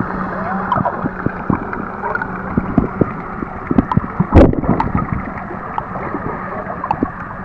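Underwater ambience picked up by a submerged camera: a steady muffled wash of water with scattered clicks and crackles, and one louder, sharp burst about four and a half seconds in.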